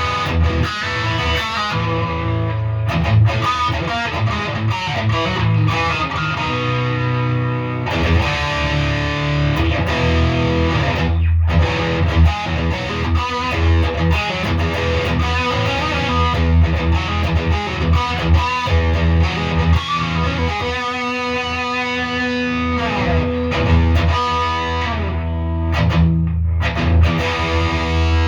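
Gibson Les Paul 50s Standard electric guitar with hot P90 pickups played through distortion: riffs and sustained chords, continuous throughout.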